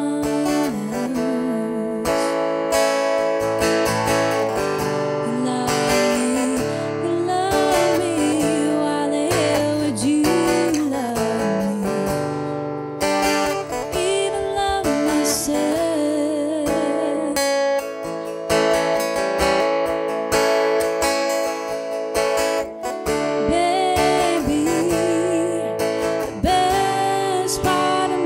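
Music: a song led by acoustic guitar, with a wavering melody line above it.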